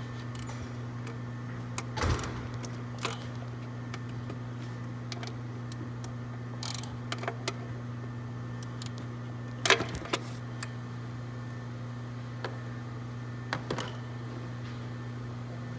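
Scattered metallic clicks and knocks of hand tools snugging the intake manifold bolts, the loudest about two seconds in and just under ten seconds in, over a steady low hum.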